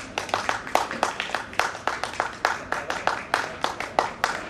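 Hand claps from several people, sharp and uneven, about five or six a second.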